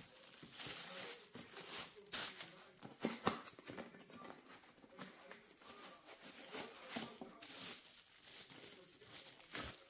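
Hands handling objects and packaging: irregular clicks, taps and crinkling rustles.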